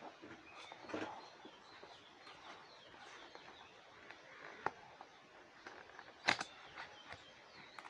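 Cardboard multimeter box handled on a table: rustling and a few sharp knocks, the loudest about six seconds in, with birds chirping faintly in the background.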